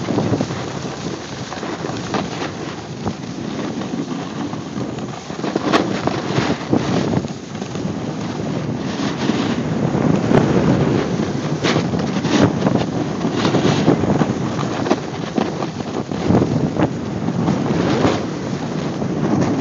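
Wind rushing over the microphone during a fast snowboard descent, with the board's edge scraping across groomed snow in repeated swells on the turns.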